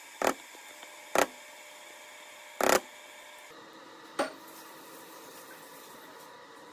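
Four sharp knocks of a spatula and a stainless steel mixing bowl, the batter being scraped out into the pan; the last knock, about four seconds in, is a metal clank that rings on briefly. A faint steady hum lies under them.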